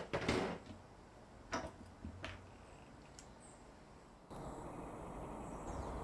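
Hollow knocks and a short scraping rustle inside a tire as a rubber mushroom plug is pulled up against the tire's inner liner: a sharp knock with a half-second scrape at the start, then three lighter knocks over the next few seconds. About two-thirds of the way through, the sound switches abruptly to a steady outdoor background hiss.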